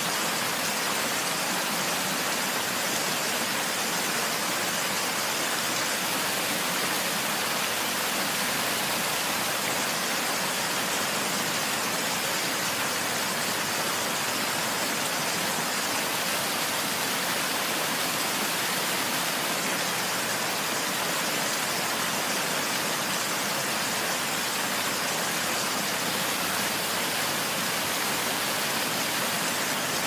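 Waterfall: a steady, unbroken rush of falling water, bright and hissy with little deep rumble.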